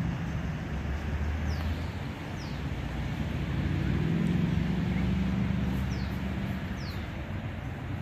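Low, steady drone of a motor vehicle's engine running at a distance, swelling to its loudest about halfway through and then easing off. A few short, high, falling chirps sound over it.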